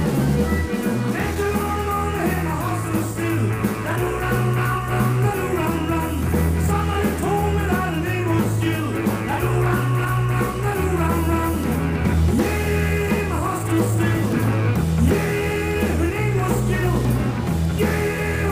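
Three accordions playing an upbeat tune together, with held bass notes that change every second or two under the chords and melody.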